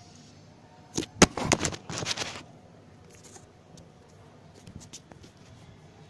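Hands handling a cardboard car chassis and its small plastic wheel-and-motor unit: a short cluster of sharp clicks and rustles about a second in, then a few faint ticks.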